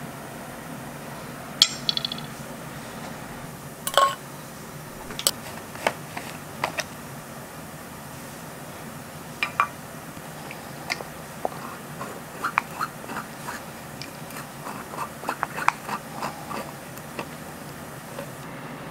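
Scattered clinks, taps and knocks of tools and containers being handled and set down on a steel work table, one with a short metallic ring, with a cluster of small ticks near the end, over a steady low hum.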